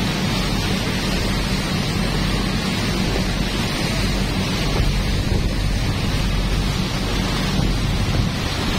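Riverboat under way: the steady low drone of its engine under a constant rush of water along the hull and wind on the microphone.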